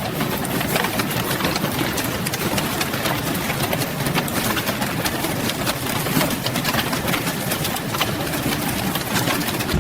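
Grape destemmer machine running, its rotating drum giving a steady, dense rattling clatter of many fast clicks.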